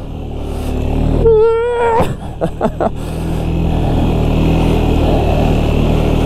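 Suzuki King Quad ATV engine pulling under load while towing a snowmobile uphill, its revs and level rising over the first second or so, then running steadily. A short wavering high tone cuts in about a second in and stops near the two-second mark.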